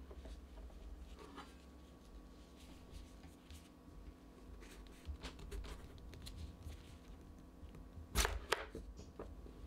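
Chef's knife cutting through a raw potato on a plastic cutting board, with faint scrapes and taps of the blade and potato against the board. Two loud knocks on the board come about eight seconds in, over a low steady hum.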